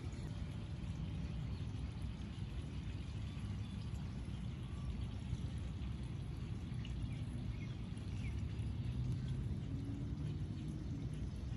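Steady rain falling, an even, unbroken patter.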